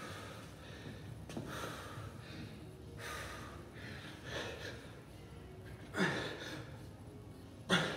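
A man breathing hard from exertion during one-arm kettlebell presses: short, forceful exhalations about every second and a half, with two louder, sharper breaths about six seconds in and near the end.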